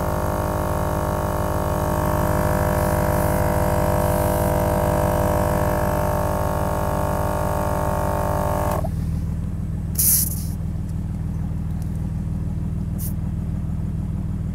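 Dual-cylinder 12 V mini air compressor running with a steady whine while it inflates a Jeep tyre, cutting off abruptly about nine seconds in. A short, sharp hiss of air follows about a second later, and a low steady hum from the idling Jeep engine runs underneath throughout.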